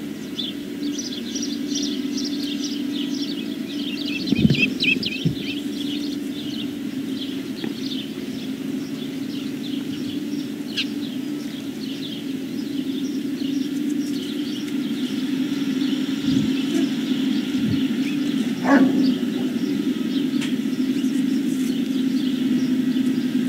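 Small birds chirping in quick, dense runs for the first several seconds, then more sparsely, over a steady low hum. A few dull thumps and one brief pitched sound come through near the end.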